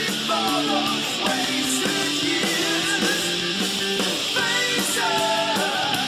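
Background rock music with electric guitar and a singing voice.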